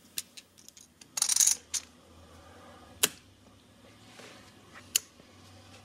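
Scattered sharp clicks of poker chips being handled at the table, with a short rustle about a second in. The strongest click comes about three seconds in, and another follows about two seconds later.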